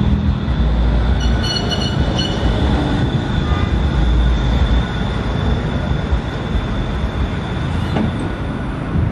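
Pesa Swing 122NaSF low-floor tram running past on street track: a steady rumble of wheels on rails with a thin high whine held throughout. About a second in, a short run of quick, evenly pulsed high beeps sounds for about a second.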